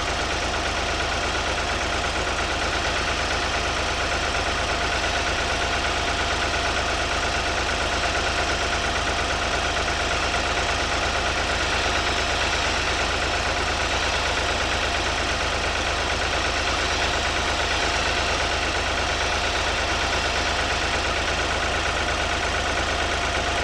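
Tractor engine idling steadily, kept running to circulate methyl hydrate through the hydraulic oil, which is suspected of holding frozen water.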